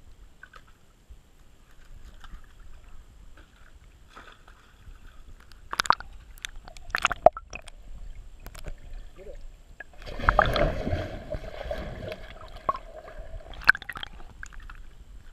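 Pool water sloshing and splashing, heard muffled through a waterproof camera housing at the surface, with a few sharp knocks and a louder churning splash about ten seconds in.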